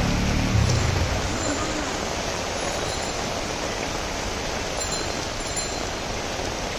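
Heavy rain falling steadily on a wet street, an even hiss. A motorcycle engine's low rumble fades away within the first second.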